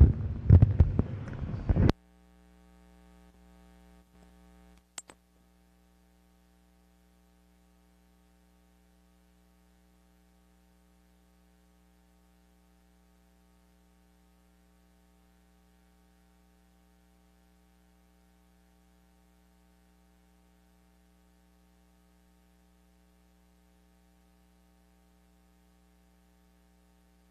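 Loud jumbled room noise from a crowd getting to its feet for about two seconds, then the sound cuts abruptly to a faint steady electrical hum. Five seconds in it drops again to near silence for the rest.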